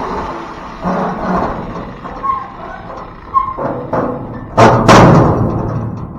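Clanks and knocks of a steel dumpster door and its newly fabricated lock being worked during a test fit. Two brief squeaks come near the middle, and the two loudest bangs fall close together about four and a half seconds in.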